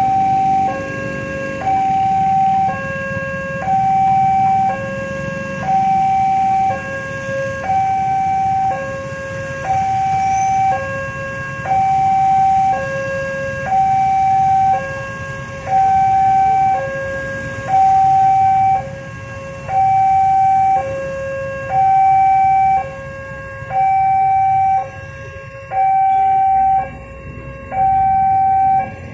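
Railway level crossing's electronic warning alarm sounding a steady two-tone cycle, high tone then low tone, about a second each, signalling an approaching train. Motorcycle engines idle faintly underneath.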